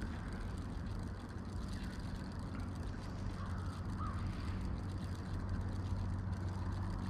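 A steady low hum over a faint hiss, with a couple of faint short chirps near the middle.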